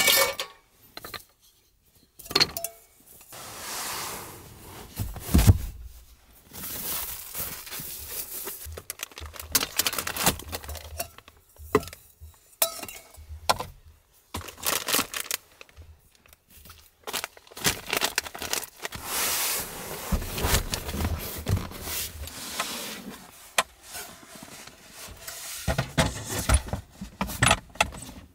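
Metal cookware and dishes clinking, rattling and scraping as they are packed into a wooden under-floor storage box, with irregular knocks and rustles of handling.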